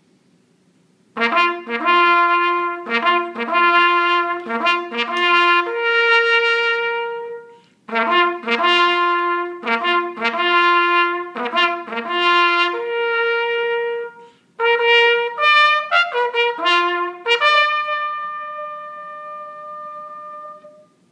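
Solo trumpet playing a military bugle call in three phrases of quick repeated and held notes, each separated by a short breath. The last phrase ends on a long held note that slowly fades away just before the end.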